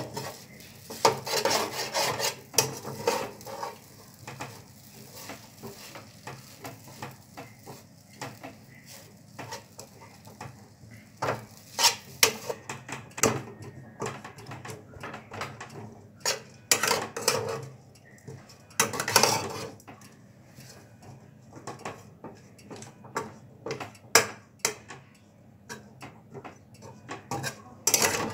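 Flat metal spatula stirring and scraping cooked semolina around a wok, in irregular bursts of scrapes and clacks against the pan.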